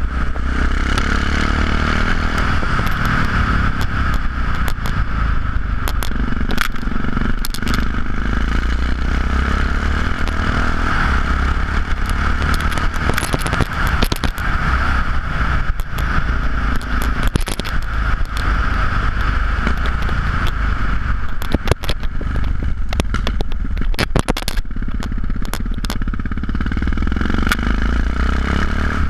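Yamaha XT660X single-cylinder engine running steadily through Leo Vince aftermarket exhausts while riding, heard through wind noise on the microphone. Clusters of sharp crackles and clicks come through now and then, most densely about three-quarters of the way through.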